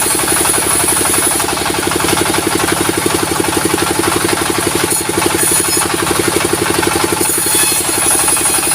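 Sawmill's diesel engine running steadily, with a fast, even knocking pulse and a hiss above it.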